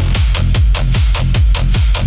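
Instrumental electronic dance music with no vocals: a heavy kick drum pounding a steady beat, about three hits a second, over a deep sustained bass, with crisp hi-hats on top.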